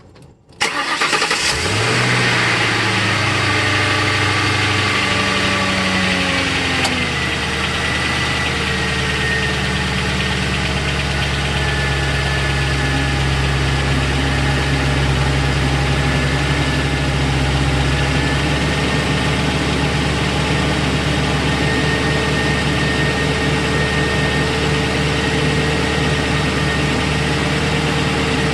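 Ford 4.6L two-valve V8 starting up, catching about half a second in, then running at a fast idle that drops and settles to a steady idle around six to eight seconds in. The engine has a cold-start noise, first taken for early rod knock, that the owner later traced to timing chain guides worn through and a chain eating into the tensioner piston.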